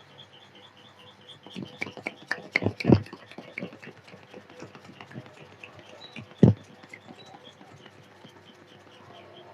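Sharp taps and slaps from a barber's head massage: a quick flurry of strikes about two to four seconds in, and one louder slap about six and a half seconds in. A faint high chirp repeats about four times a second throughout.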